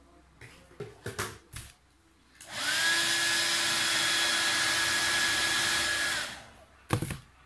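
Handheld hair dryer switched on for about four seconds, starting a couple of seconds in, blowing with a steady whine as it heats a bag's plastic zipper teeth to soften them for repositioning. A few short clicks and handling knocks before it starts and just after it stops.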